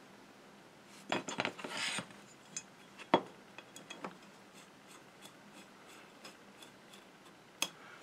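Small metal clicks and clinks of hand tools and parts being handled on a workbench: a cluster of clicks about a second in, one sharp click around three seconds, a few light ticks, and a last click near the end.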